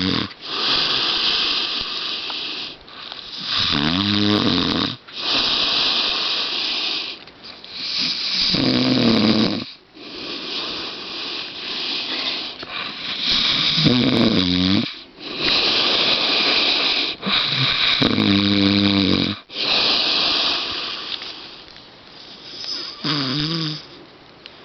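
A dog snoring in its sleep: long, hissy breaths broken about every four to five seconds by a short, pitched snore, five times.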